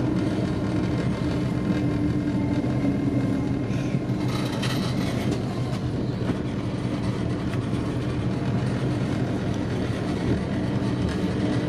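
Steady running hum and rumble inside a Hitachi-built LNER Azuma train as it slows into a station platform, with a brief hiss about halfway through.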